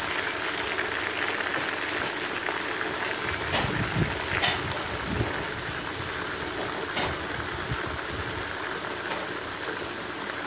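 Chicken pieces deep-frying in hot oil in a stainless steel pan: a steady sizzle and bubbling. A few light clicks of metal tongs against the pan come around the middle as the pieces are turned.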